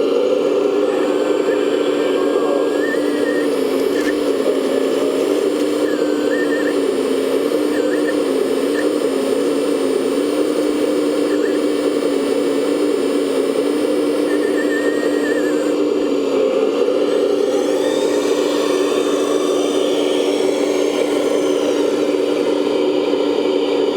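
Electric motors and hydraulic pumps of 1/14-scale RC construction machines running: a steady hum with a thinner, higher whine that shifts up and down in pitch every few seconds.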